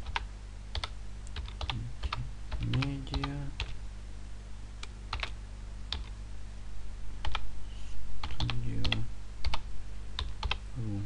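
Computer keyboard typing: irregular key clicks over a steady low hum, with two short low hums of a man's voice, about three seconds in and near nine seconds.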